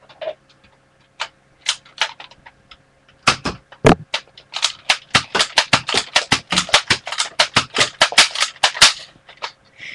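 Plastic clicks and snaps from a Nerf Maverick REV-6 toy blaster being worked by hand: a few single clicks, a heavier thump about four seconds in, then a fast run of clicks lasting about four seconds.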